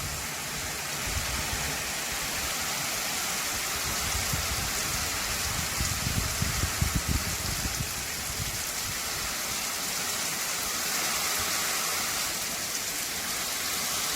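Steady autumn rain falling in a bamboo grove, an even hiss of drops on the leaves, with a few low bumps near the middle.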